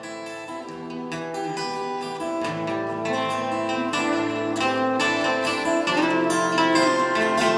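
Instrumental music of a plucked string instrument, guitar-like, picking out a melody of single notes, gradually getting louder.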